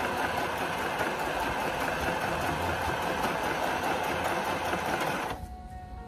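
Sewing machine running steadily at speed, stitching fabric, then stopping about five seconds in; background music plays underneath.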